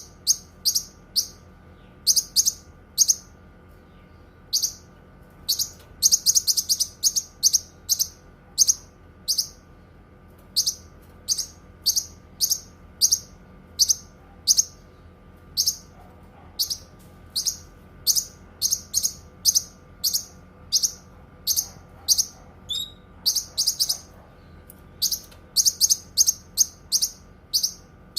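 Cucak kinoi bird singing: a run of short, sharp, high chirps about one or two a second, some given singly and some in quick clusters of several notes.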